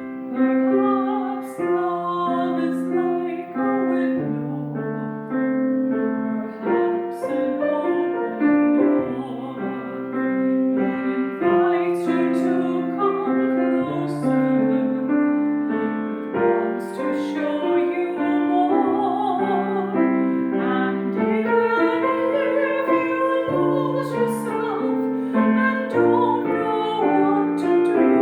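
Piano playing a slow ballad in steady chords. A singing voice with vibrato rises over it in the second half.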